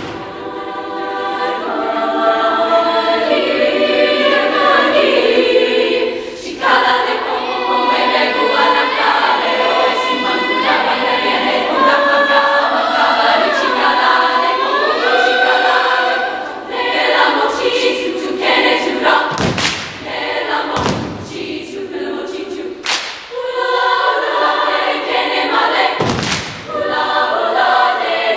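Treble choir of young women singing in several parts, the pitches gliding and shifting together. A few sharp knocks cut across the singing, mostly in the second half.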